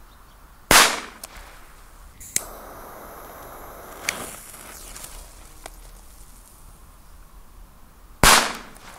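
Two loud firecracker bangs, one about a second in and one near the end. Between them a jet-flame torch lighter clicks on and hisses for about two seconds while it lights a firecracker fuse.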